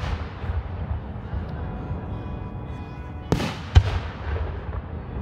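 Aerial fireworks shells bursting in booms: one right at the start, then a brief hiss and another sharp boom near four seconds in, over a continuous low rumble from the display.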